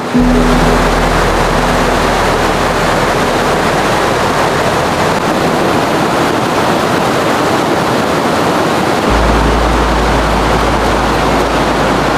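Fast mountain creek rushing in whitewater over rocks and a log jam: a loud, steady wash of water noise that starts suddenly at the beginning.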